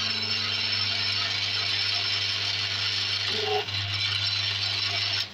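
An electric machine running steadily: a low hum with a rattling, whirring mechanical noise over it, stopping suddenly right at the end.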